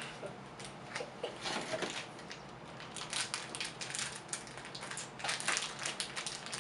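Crinkling of a small black foil blind bag being handled and pulled open by hand, in irregular bursts.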